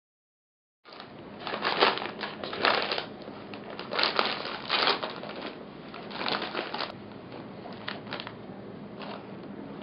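Crinkly foil-lined snack-chip bag crinkling and crackling as prosthetic hands grip, squeeze and open it. The crinkling starts about a second in and comes in bursts, thinning out near the end.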